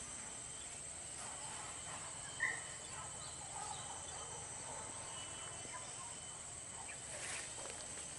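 Steady high-pitched insect buzz, with one short chirp about two and a half seconds in.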